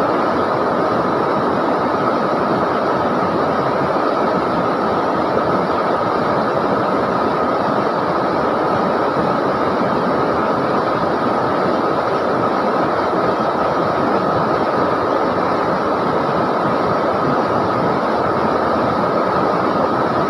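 River water rushing and churning steadily.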